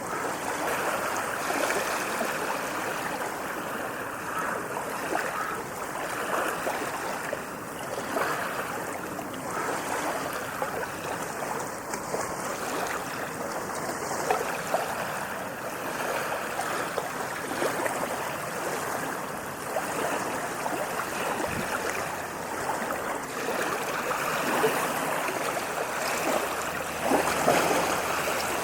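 Ocean waves washing over a sandy beach: a continuous fizzing wash that swells and ebbs gently, with one larger surge near the end.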